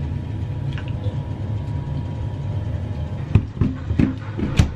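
Steady low hum in a kitchen, with several sharp knocks in the last second and a half as the glass blender jar of freshly blended oat milk is handled.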